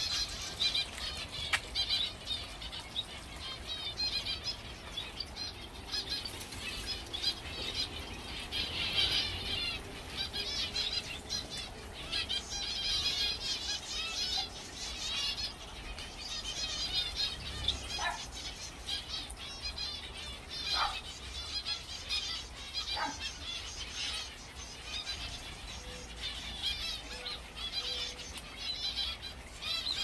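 A flock of small aviary birds chirping and twittering without a break, many quick high calls overlapping, with a few brief lower calls in the second half.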